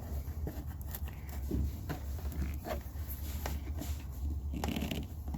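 Scattered small clicks and light knocks of a plastic scooter battery cover and its screw being handled and fitted by hand, over a steady low hum.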